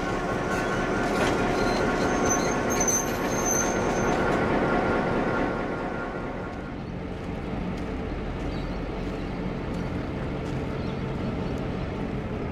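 Diesel locomotive running slowly past, a steady mechanical rumble with brief high squeals about two to four seconds in. After about six seconds it gives way to a quieter, steady low engine hum from locomotives standing at a distance.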